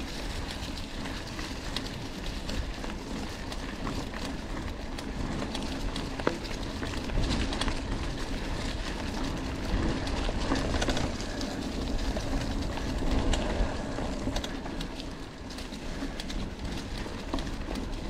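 Mountain bike rolling over a forest trail: steady tyre and wind rumble with the bike rattling over bumps in many small irregular clicks.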